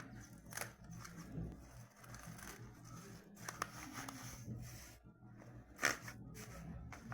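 Paper and plastic bags rustling and crinkling while a paper squishy is handled and taped shut, with scattered light scrapes and one sharp click about six seconds in.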